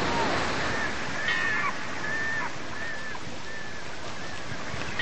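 Steady rushing noise with a bird repeating a short, high whistled call about five times, roughly one every three quarters of a second, starting about a second in.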